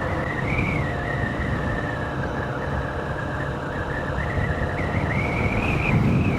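Honda CB125F's single-cylinder four-stroke engine running at a steady cruise, mixed with wind buffeting the lav mic and a wavering high whistle that rises slightly near the end.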